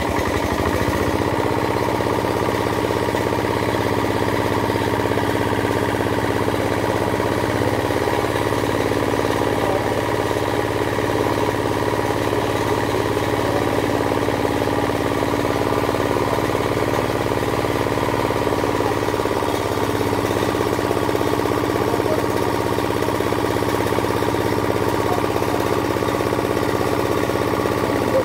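Small engine driving a water pump, running steadily at an even pitch.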